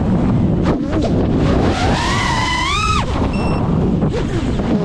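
5-inch FPV quadcopter's brushless motors whining, the pitch climbing for about two seconds as the throttle is pushed up, then cutting off abruptly about three seconds in as the throttle is chopped. Heavy wind buffeting on the onboard camera's microphone runs underneath throughout.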